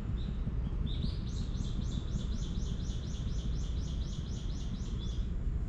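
A small songbird sings a fast run of repeated high notes, each sliding slightly downward, about four a second for some four seconds, over a steady low rumble.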